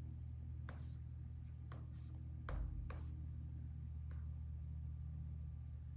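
Sparse, irregular taps on a laptop keyboard, about seven isolated keystrokes rather than continuous typing. The loudest comes about halfway through and carries a dull thump. A steady low hum sits underneath.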